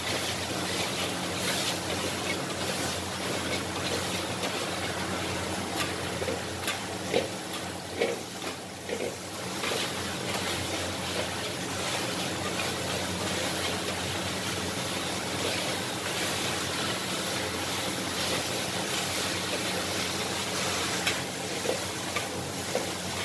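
Stir-frying flat rice noodles in a wok over a high gas flame: a steady rush of the burner and sizzling, with a metal wok spatula scraping and clanking against the wok now and then.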